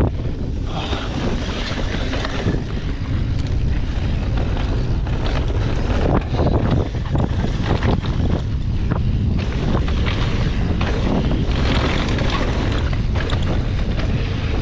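Wind buffeting a GoPro Hero 8's microphone as a Specialized Enduro mountain bike descends a dirt trail at speed, a steady low rumble of tyres on dirt with scattered clicks and knocks from the bike rattling over bumps.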